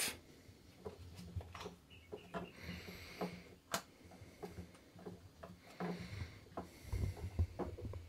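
Faint scattered clicks and light knocks of a plastic seatbelt retractor cover being gripped and worked off its reel by hand, after its retaining pins have been removed.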